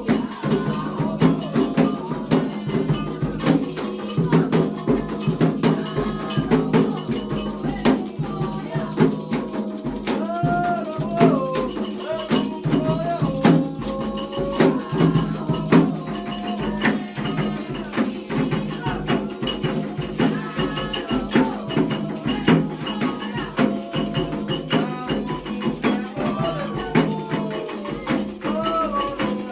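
Candomblé ritual music: hand drums and a clanging iron bell beating a dense, steady rhythm under singing voices. The drums are typically atabaques and the bell an agogô.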